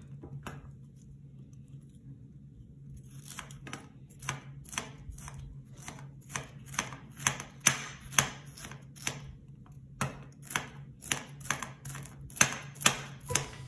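Chef's knife slicing a banana pepper into thin strips on a plastic cutting board. A steady run of blade taps, about two or three a second, starts about three seconds in.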